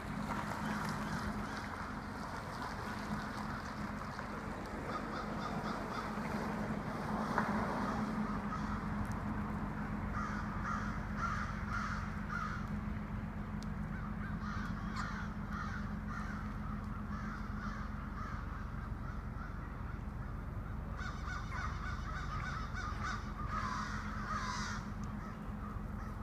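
A large flock of crows cawing, many calls overlapping, as they gather at their evening roost in bare trees. A steady low hum runs beneath.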